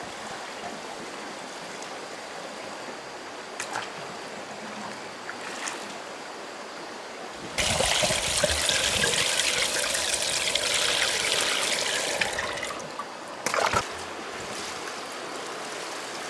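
Water trickling and flowing steadily. About eight seconds in a much louder rush of gushing, splashing water starts suddenly, runs for about five seconds and fades, followed by a short splash.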